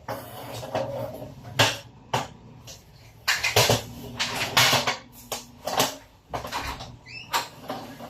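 Irregular household handling noise: a run of knocks and clicks with longer rustling, scraping stretches about three to five seconds in, over a steady low hum.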